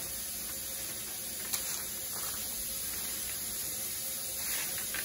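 Oiled, seasoned raw pumpkin seeds being stirred by a gloved hand on a parchment-lined baking sheet: a soft, steady rustling, with one small click about one and a half seconds in.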